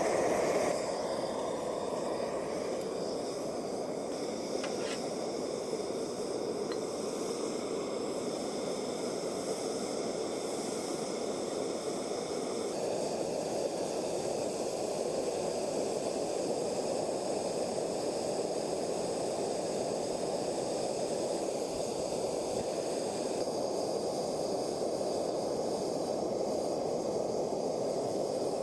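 Bernzomatic gas torch firing into a mini keg forge: the flame gives a steady roaring hiss, a little quieter after the first second, while a hex-bar chisel blank heats to red inside.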